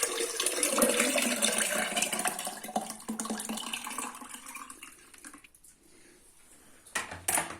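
Liquid being poured into a container, a steady splashing that tapers off over about five seconds. Two sharp knocks near the end.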